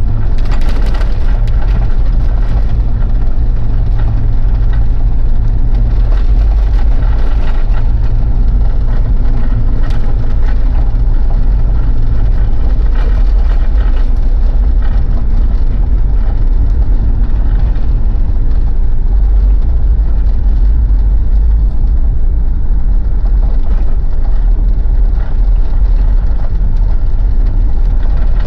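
Mitsubishi Pajero diesel engine and tyre rumble heard from inside the cabin while driving on a bumpy snowy, icy road, with short knocks and rattles over the bumps. The steady engine note changes about twelve seconds in.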